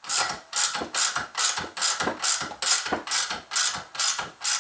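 Hand ratchet clicking in quick back-and-forth strokes, about three a second, as it winds down a bolt-on valve spring compressor to compress a valve spring and expose the keeper groove.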